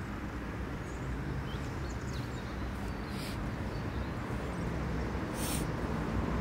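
Steady low rumble of distant city traffic, with a few faint high bird chirps early on and two brief hisses about three and five and a half seconds in.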